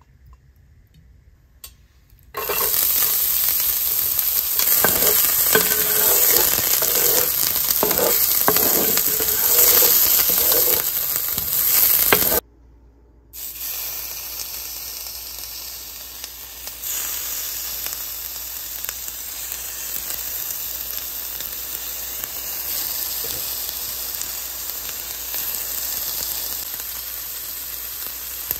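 Raw shrimp frying in olive oil in a hot cast-iron skillet, a steady sizzle. It starts about two seconds in and is loudest for the next ten seconds. After a brief break it carries on more quietly, with some stirring as the shrimp are turned with a fork.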